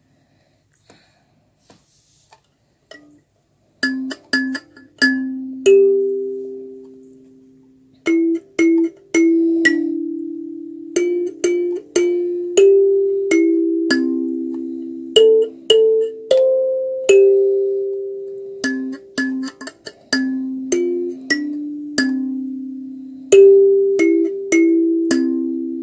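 Kalimba played with the thumbs: a simple melody of plucked metal tines, each note ringing and slowly fading, with some notes repeated quickly. The playing starts about four seconds in.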